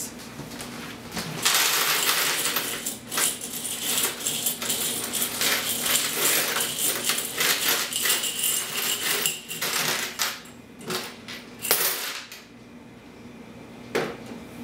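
A pile of mixed US coins being tipped out of a small glass jar and clattering onto a tabletop for several seconds, then a few scattered clinks as the last coins are shaken loose. One sharp knock near the end.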